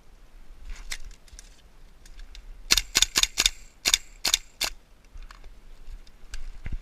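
Airsoft rifle firing seven sharp shots in quick succession, a few tenths of a second apart, after a few fainter clicks about a second in.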